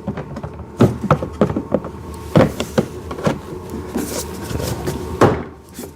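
Plastic parts of a kids' ride-on toy car knocking and clicking as the windscreen is worked into its frame: a series of separate sharp knocks about a second apart, with a brief rustle partway through.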